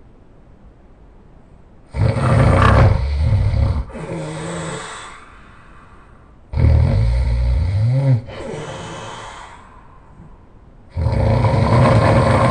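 A person snoring loudly: three snores about four and a half seconds apart, each loud for about two seconds and then trailing off more softly.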